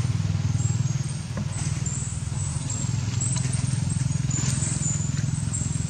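A steady low engine drone, like a motor running nearby, with faint high-pitched chirps above it.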